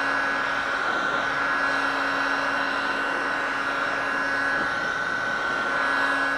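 Handheld electric heat gun running steadily, its fan blowing hot air with an even rush, a low hum and a higher steady whine.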